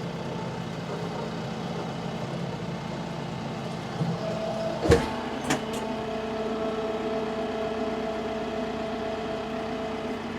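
Tractor engine running steadily while a tree-puller attachment works. About five seconds in there are a couple of sharp snaps, and after them a steady higher whine runs on over the engine.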